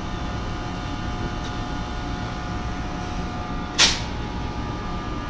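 Steady mechanical hum and rumble of a New Jersey Transit passenger train standing at the platform, with faint steady tones in it. One sharp clack cuts in just under four seconds in.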